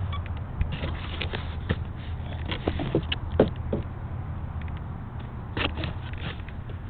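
Handling noise close to a small camera's microphone: scattered clicks, taps and rustles, clustered in the first half and again near the end, over a steady low hum.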